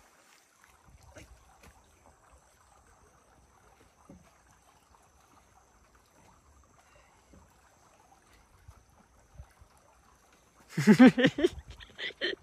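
Faint low rumble with scattered light knocks, then a loud burst of a person's voice near the end.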